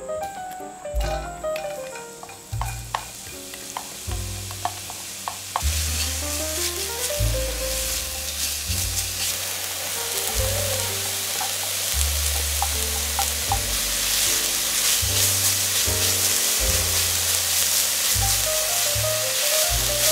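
Chopped red onion and carrot sizzling in hot olive oil in an enamelled cast-iron Dutch oven as a spatula stirs them. The sizzle starts suddenly about five and a half seconds in and continues steadily, with piano music underneath.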